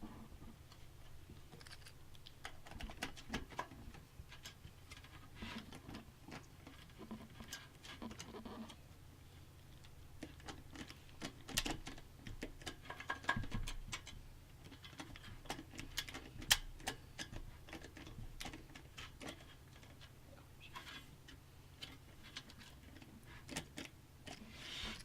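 Irregular small clicks, taps and rattles of metal computer-case parts and screws being handled and fitted, over a steady low hum.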